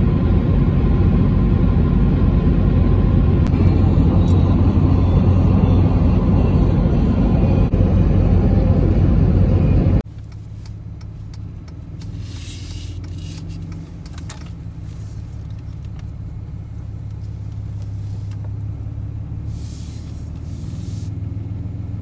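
Steady road and engine noise inside a vehicle's cab at road speed. After a sudden cut about ten seconds in, a much quieter steady low engine hum follows, with a few brief hissing swishes.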